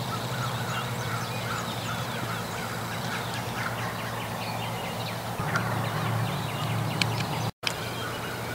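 Distant wild turkeys gobbling, a run of repeated calls over the first three seconds or so, among small songbird chirps of the dawn chorus and a steady low hum of road traffic. The sound cuts out briefly near the end.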